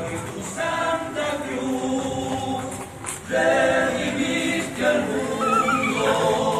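A group of voices singing a religious hymn together in long held notes. There is a brief break about three seconds in, after which the singing comes back louder.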